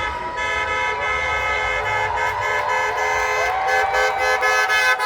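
Several car horns honking at once in long, overlapping blasts, making a continuous loud chorus of clashing pitches.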